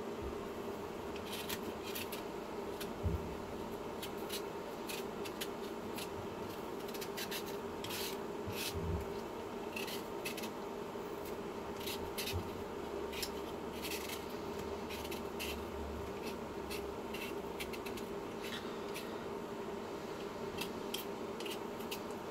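Potatoes being peeled with a hand vegetable peeler: many short scraping strokes of the blade along the skin at an irregular pace, over a steady low hum.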